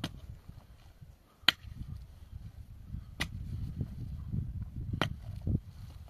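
Four sharp strikes, about one every one and a half to two seconds, over a low rumble.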